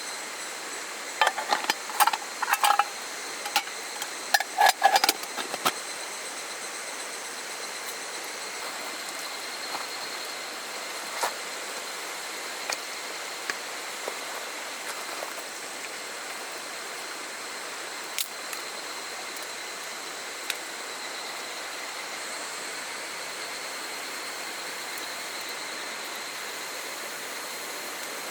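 Steady rush of a small stream, with a cluster of sharp metallic clinks and clatter in the first five seconds and a few single clicks later on. A thin steady high tone runs over it.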